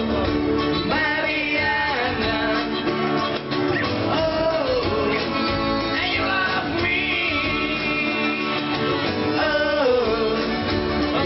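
Live band music: a male singer sings a melody over several acoustic guitars.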